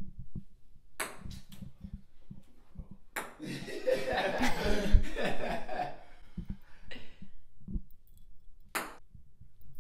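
Ping pong balls tossed at plastic cups: a few sharp clicks of the ball striking the table and cups, about a second in and again near the end. In between, people's voices rise for a few seconds, with a single low thump.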